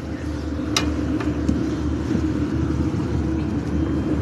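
Tugboat's diesel engine running steadily under towing load, a constant low drone with a held hum above it. One sharp click just under a second in.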